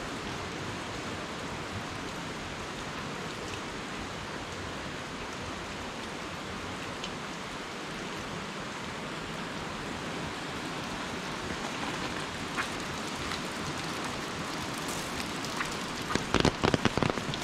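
Steady rain falling, an even hiss of drops on surfaces. Near the end comes a short run of sharp, louder taps.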